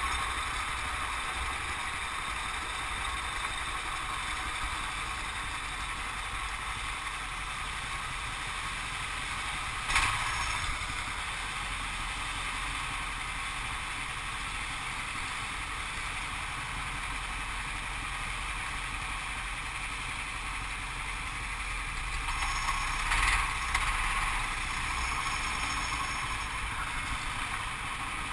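Steady vehicle noise, mostly a hiss with a low rumble and no clear rising or falling engine note. There is a sharp knock about ten seconds in and a short louder rattle a little before the end.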